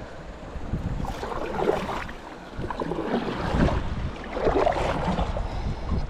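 Water splashing and sloshing around a kayak in a few uneven bursts, with wind rumbling on the microphone.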